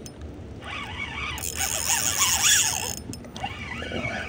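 New Ryobi spinning reel cranked quickly, its gears and rotor whirring with a rising and falling pitch as line comes in on a hooked garfish. A louder rushing hiss rises from about a second and a half in and fades near three seconds.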